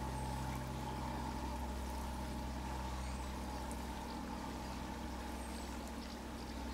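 Water showering steadily from a watering can's rose onto lawn grass, over a steady low hum.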